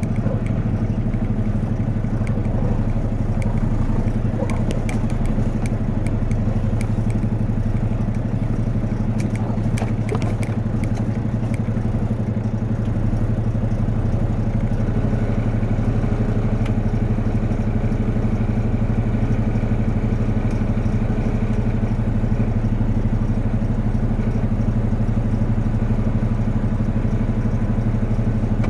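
Dump truck's diesel engine idling steadily, heard from inside the cab, with a few light clicks or rattles about 5 and 10 seconds in.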